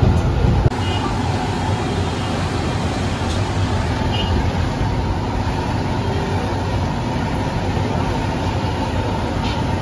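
Steady low rumble of a busy street-side stall, road traffic together with gas burners under woks of frying oil, with a few louder knocks in the first second.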